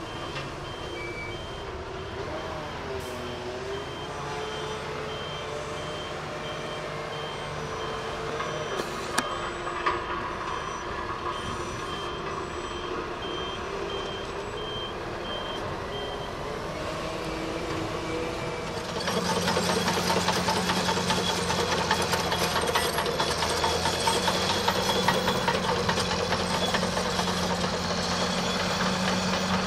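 Volvo hooklift truck's hydraulics whining in gliding tones as the tipped container is lowered, over its running diesel engine, while a reversing beeper sounds evenly about once a second. About two-thirds of the way in the sound switches to a louder, steady CAT crawler bulldozer engine with a dense clatter.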